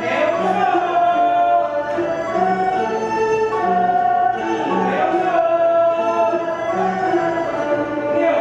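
Traditional temple ceremonial music for a three-offering rite: a melody of long held notes that step from one pitch to the next, with no break.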